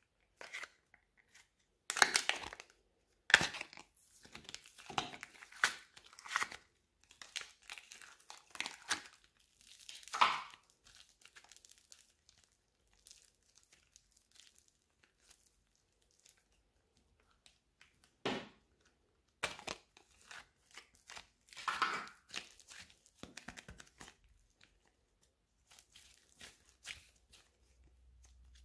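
Thin plastic slime cup crinkling and crackling as it is squeezed and the clay peeled out, then soft tearing and crinkling as clay and slime are stretched and pulled apart by hand. The sounds come in irregular bursts with quiet gaps, the sharpest crackles in the first few seconds.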